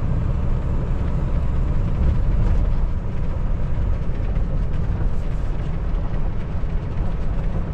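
Semi truck's diesel engine and road noise while driving: a steady low rumble with no other clear events.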